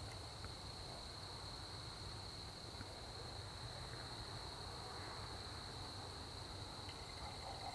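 A chorus of crickets chirring steadily, a faint, unbroken high-pitched trill.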